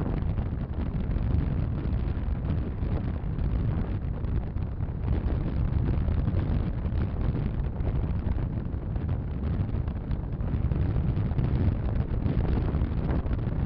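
Strong wind buffeting the microphone: a steady, fluttering low rumble with no clear tone.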